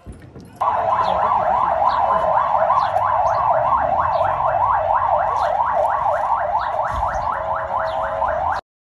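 Emergency vehicle siren wailing, its pitch sweeping rapidly up and down. It starts abruptly about half a second in and cuts off suddenly near the end.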